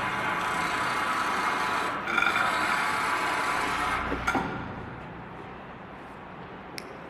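A machine running with a steady hiss and hum that dips briefly about two seconds in. A little over four seconds in it stops with a sharp clack, leaving a quieter background and one faint click near the end.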